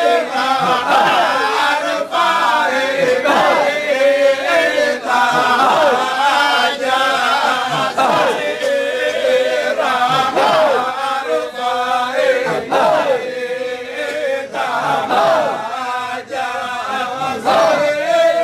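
Sufi dhikr: a group of men chanting together in unison, short phrases repeated over and over in a steady rhythm.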